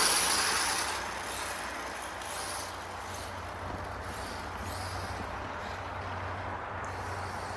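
1/4-scale BSD Racing 404T electric RC dirt bike running: a loud rush of motor and tyre noise at the start that falls away within about a second, then a steadier, fainter noise with brief high whines as the brushless motor revs further off.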